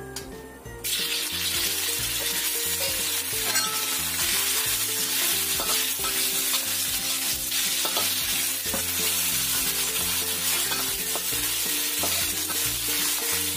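Thin slices of beef frying in hot oil in a wok: a loud, steady sizzle that starts suddenly about a second in as the meat hits the oil. A metal spatula stirs and scrapes through it.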